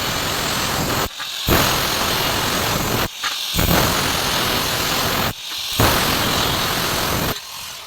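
Loud, rough metalworking noise on steel, with no clear motor tone, in four stretches of about two seconds separated by short breaks.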